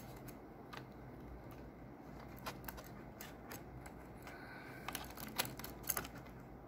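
Faint scattered clicks and taps of a copper CPU heatsink and fan assembly being fitted back into an open laptop, a few light clicks about a second in and a cluster near the end.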